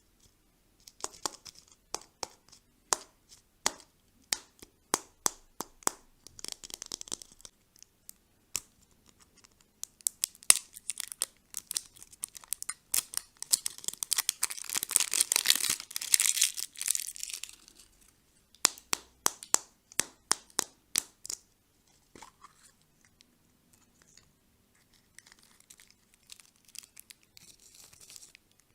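Plastic candy packaging being handled and torn open: crinkling and tearing, with many sharp clicks and taps, and the loudest, longest rustle a little past the middle.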